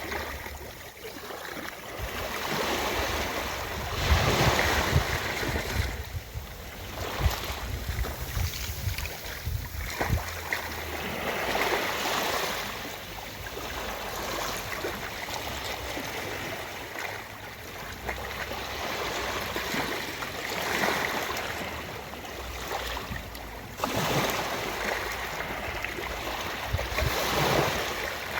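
Ocean surf washing onto a beach: a steady hiss of water that swells as each wave breaks and fades again every few seconds.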